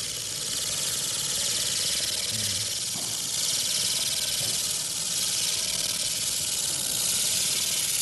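100W pulsed laser cleaning head ablating a metal surface: a steady, loud, high-pitched hiss.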